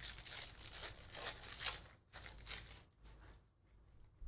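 The foil wrapper of a trading card pack being torn open, crinkling in several rustling bursts over the first two to three seconds, then quieter.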